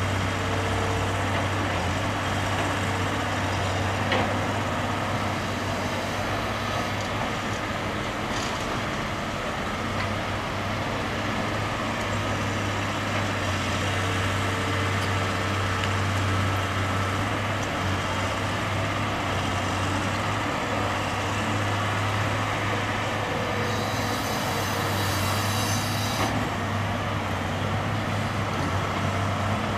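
Diesel engines of a Caterpillar tracked excavator digging and a Mercedes-Benz dump truck standing by, a steady low drone, with a brief hiss about 24 seconds in.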